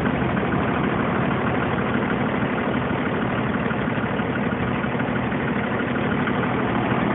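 The large engine of a 45-passenger party bus idling steadily, with no change in speed.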